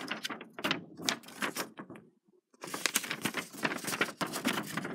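Paper instruction leaflet being handled and flipped through: rapid rustling and ticking, with a short break about two seconds in.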